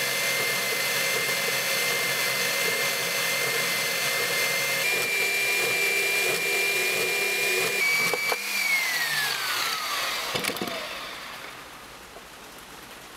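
Small metal-cutting band saw running steadily as it cuts through a thick-walled steel tube, with a high whine that steps up slightly about five seconds in. About eight and a half seconds in it is switched off and the motor winds down with a falling whine.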